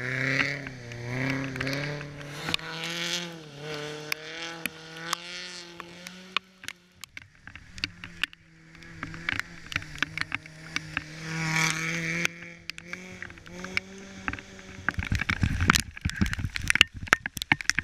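Rally car engine revving hard and changing pitch as a Peugeot 205 rally car passes. A second rally car's engine rises and falls as it comes through between about nine and fourteen seconds in. Near the end come rapid, loud clattering knocks and rumble.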